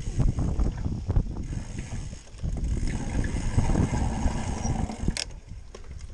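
Mountain bike rattling over a rough dirt trail, picked up by a camera on the handlebars: a steady rumble of tyres with many small knocks and clicks from the bike's parts, and one short, sharp clink about five seconds in.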